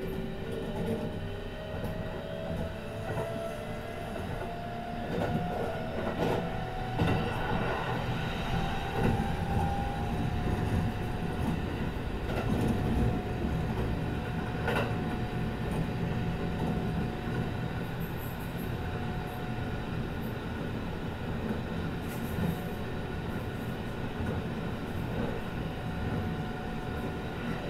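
Interior running sound of a Kintetsu 22000 series ACE limited express: a steady rumble of wheels on rail with a few brief knocks. Over it the whine of the Mitsubishi GTO VVVF inverter rises slowly in pitch through the first ten seconds or so, then holds one steady tone.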